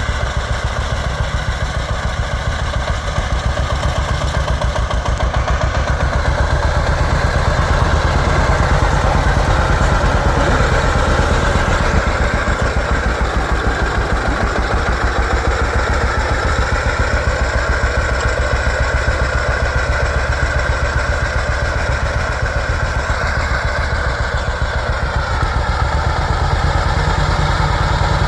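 1950 John Deere Model A tractor's two-cylinder engine running steadily, with an even, rapid pulsing beat.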